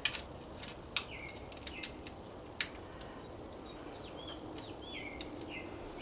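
A small bird chirping over and over in short, pitch-sliding chirps, with a few sharp clicks in the first half.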